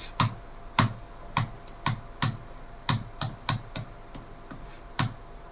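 Keys pressed repeatedly on a Lenovo IdeaPad 3 15 laptop keyboard: about fifteen sharp clicks at an uneven pace, stopping shortly before the end. The keypresses save the BIOS settings and get the laptop booting from a USB pen drive.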